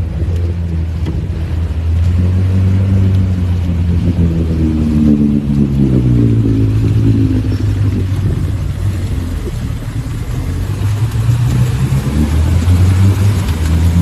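UAZ off-roader's engine running hard under load as it wades through deep water, revving up and then easing off about halfway through, with water churning around the body.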